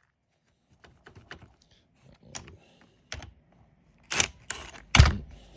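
Scattered small metallic clicks and taps of hand tools and bolts as the bolts holding a car seat to its floor bracket are taken out, with a heavier knock about five seconds in.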